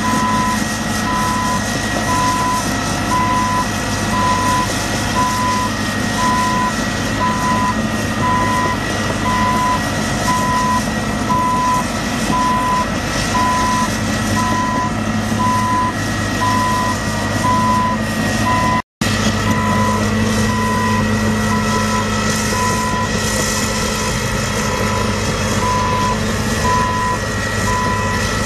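John Deere 330C LC excavator's travel alarm beeping steadily, about one and a half beeps a second, over its 8.1-litre six-cylinder turbo diesel running; the alarm sounds while the machine is tracking. The sound cuts out for a moment about two-thirds in, and the beeps pause for a few seconds after that.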